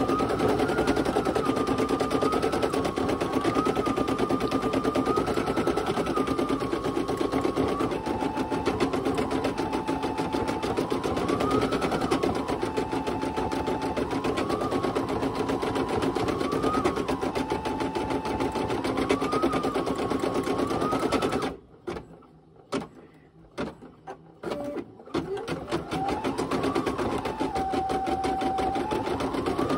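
Brother PE800 embroidery machine stitching a design at speed: a fast, steady needle chatter under a motor whine that steps up and down in pitch as the hoop moves. About two-thirds of the way through the stitching stops, a few short whirs sound, and then it starts again with a rising whine.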